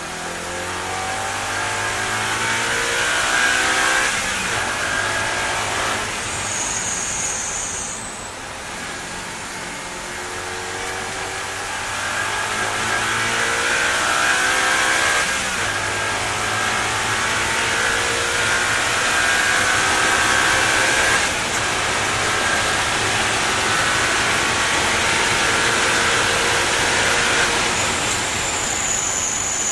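Audi R8 race car's engine heard on board at speed, its pitch climbing through each gear and dropping back at every upshift, over heavy wind and tyre noise. The car eases off briefly about eight seconds in, then pulls hard again.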